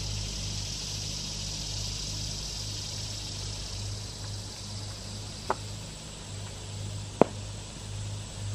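Knife blade carving a green forked stick, with two sharp clicks about a second and a half apart, the second louder, over a steady low engine hum and a high hiss.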